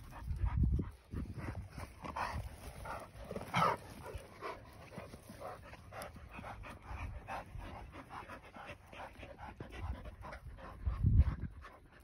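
Dogs panting in a quick, steady rhythm of short breaths, with low rumbles about half a second in and again near the end.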